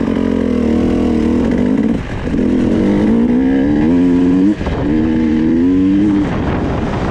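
Trail dirt bike's engine pulling away and accelerating, its note climbing in three pulls with short dips between as the rider shifts up through the gears, then settling to a steadier lower note near the end.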